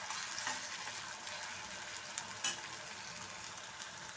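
Diced potatoes sizzling steadily in hot oil in a wok, stirred with a steel ladle that gives a few light clicks against the pan.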